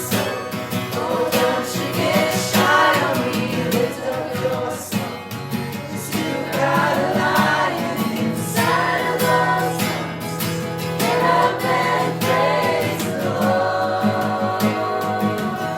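A group of voices singing a worship song together, accompanied by strummed acoustic guitar.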